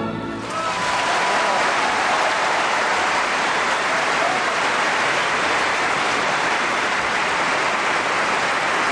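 A held final note of the song, sung with vibrato over the orchestra, cuts off within the first half second, and a large concert audience breaks into applause that continues at a steady level.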